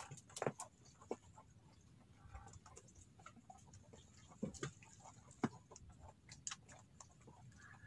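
Faint scattered sharp clicks and taps, with a short bird call about two seconds in.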